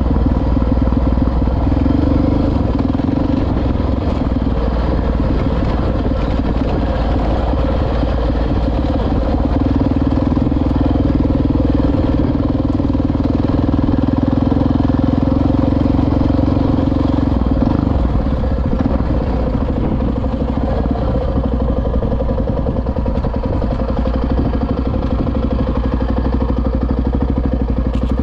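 Honda XR650R dirt bike's single-cylinder four-stroke engine running steadily while riding along a dirt track, with a stronger tone from about ten to eighteen seconds in before it eases a little.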